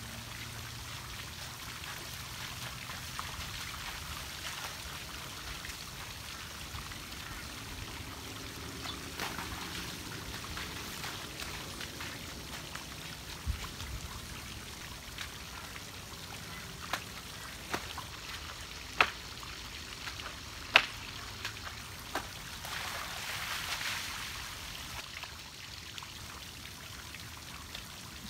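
A small waterfall's steady rush of trickling water. Several short sharp ticks stand out over it in the middle of the stretch.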